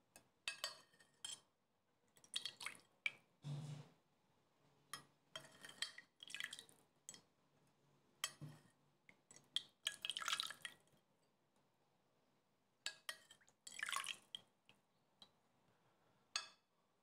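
Thick strawberry drinking yogurt poured from a ladle into glass tumblers, coming in short, irregular splashes and drips, with a few light clinks of the ladle against glass.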